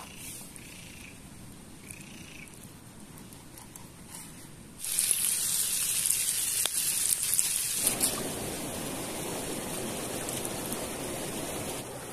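Cubes of tuna steak sizzling in a frying pan over a campfire. The sizzle starts suddenly about five seconds in, loud and hissing, with a few sharp pops. Near eight seconds it gives way to a lower, steady rushing noise.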